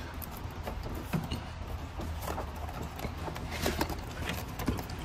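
Irregular light clicks and knocks of a replacement heater hose assembly, rubber hose with plastic snap-on ends, being handled and worked onto its fittings, over a steady low hum.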